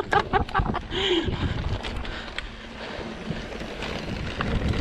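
Wind buffeting the microphone, with tyre roll and rattling from a mountain bike descending a dirt trail. It eases off in the middle and grows louder near the end.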